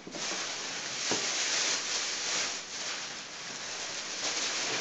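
Crinkly white packing wrap rustling and crackling as it is handled and pulled out of a cardboard box.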